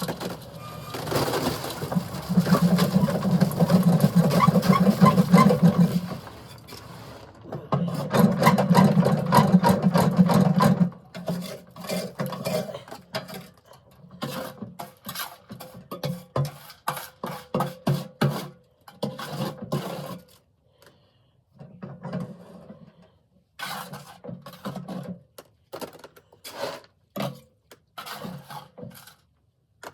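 Concrete mixer emptying a batch of wet concrete, with the load scraping and sliding out of the turning drum. It comes in two long pours over the first eleven seconds or so, then in short irregular spurts.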